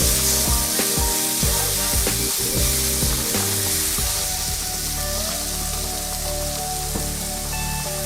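Food sizzling steadily in a hot frying pan, under background music.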